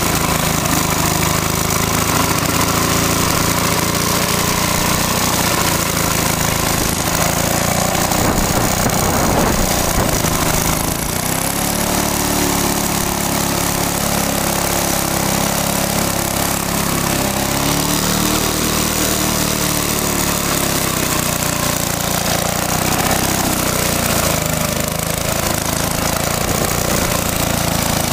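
Victa two-stroke lawn-mower engine running continuously, its speed dipping and recovering a few times.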